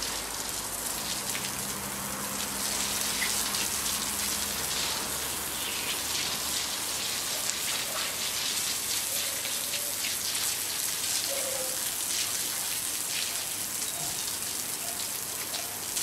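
Garden hose with a spray nozzle jetting water onto brick paving: a steady hiss of spray striking the wet bricks.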